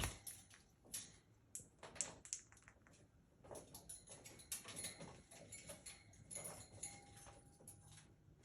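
Green-cheeked conure biting and chewing flowers with its beak: scattered faint clicks and crackles.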